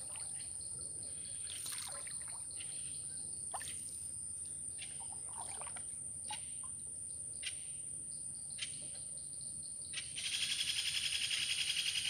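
Water dripping and splashing lightly off a wooden canoe paddle, with scattered small knocks and splashes as the canoe drifts on a still lake, over a steady thin high tone. About ten seconds in, a louder, rapidly pulsing high buzz starts and carries on to the end.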